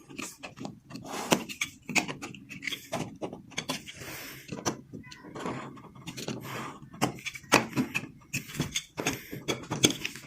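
Irregular knocks, taps and short scrapes of wood being worked and handled by hand, with no steady rhythm.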